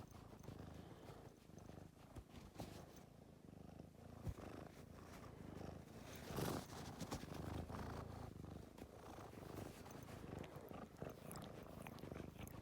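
Domestic cat purring steadily and quietly, with a few faint clicks and rustles over it.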